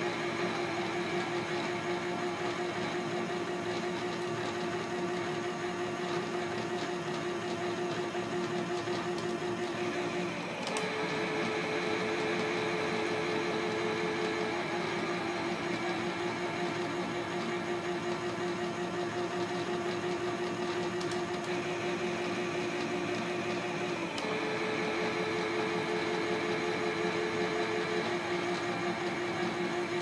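Small motor of a toy Miele washing machine running its drum with a steady hum. The hum briefly dips and changes pitch twice, about ten seconds in and again near 24 seconds, then runs steadily on.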